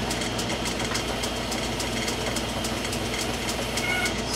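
Metal lathe running, its spindle turning a thread protector on a rifle barrel while the end is faced down: a steady motor and drive hum with a fast, regular ticking, about four ticks a second.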